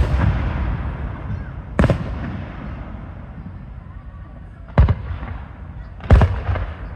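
Aerial fireworks shells bursting: three sharp booms, about two, five and six seconds in, each trailing off in a low rumbling echo.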